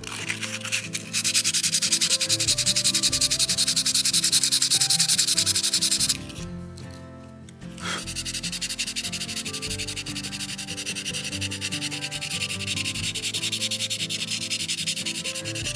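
Small air-dry clay figurine being sanded by hand, a scratchy rubbing in quick back-and-forth strokes that smooths the dried clay before painting. The sanding is loudest for the first few seconds, stops about six seconds in, and starts again more softly about eight seconds in.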